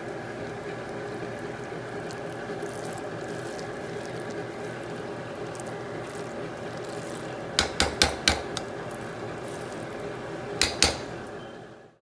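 Pot of rice and kidney beans simmering with a steady bubbling hiss. A utensil clinks against the pot about five times in quick succession some seven and a half seconds in, and twice more near the end.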